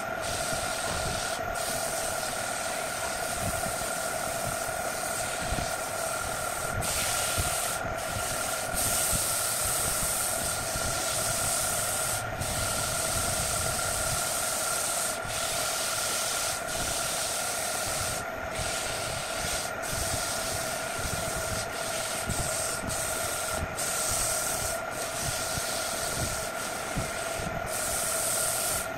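Sandpaper held by hand against a spinning turned-wood piece on an electric wood lathe: a continuous rubbing hiss over the lathe's steady motor whine.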